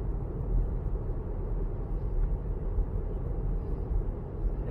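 Steady low road and tyre rumble heard inside the cabin of a Tesla Model 3 driving along, with no engine note.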